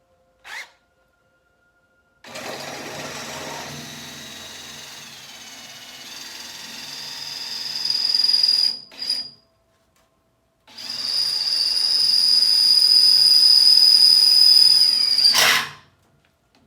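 Power drill running in two long bursts with a high whine, boring holes through a Humvee fender; a short pause separates them.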